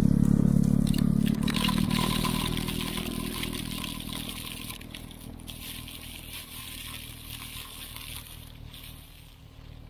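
Tractor engine running under load while driving a two-stage snowblower, with a hiss of blown snow above it; the whole sound fades down steadily.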